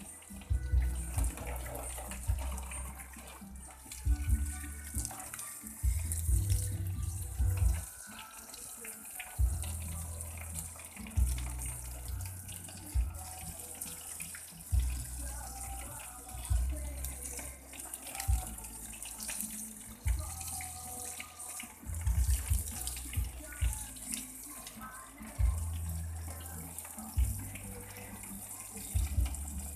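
Water running steadily, with a constant hiss.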